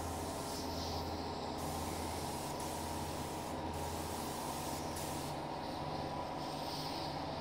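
Paint spray gun hissing steadily as it lays a light mist coat of paint, with a steady low hum underneath; the hiss's highest part thins out for a moment about a second in and again for the last couple of seconds.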